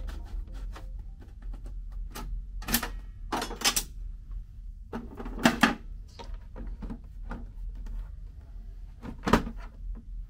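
Plastic clacks and knocks from hands handling a Better Pack 555ESA gummed-tape dispenser's cover and tape feed. They come as several separate sharp sounds over a low steady hum, the loudest about five and a half seconds in and again near the end.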